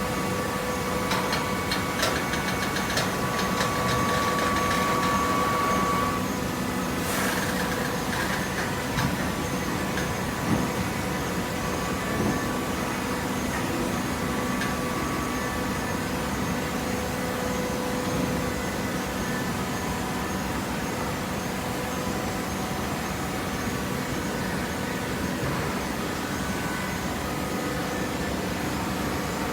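Hydraulic waste paper baler running: a steady machine hum from its motor and pump, with a run of clicks and a higher whine over the first several seconds and a short hiss about seven seconds in.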